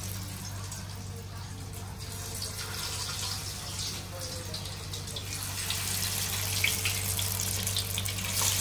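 Marinated fish pieces sizzling and crackling as they deep-fry in hot oil in a pan, the sizzle growing louder about halfway through as more pieces are dropped in. A steady low hum runs underneath.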